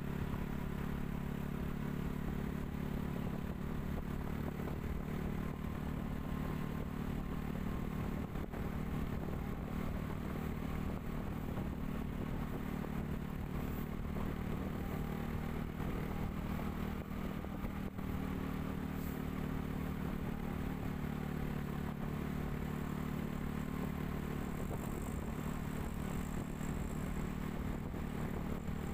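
Engine of a vehicle cruising at a steady speed, a constant low drone with road noise.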